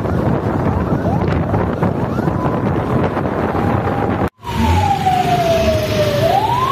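Wind buffeting the microphone over street traffic noise while moving. After a brief cut about four seconds in, a police siren wails, its pitch sliding slowly down and then rising again.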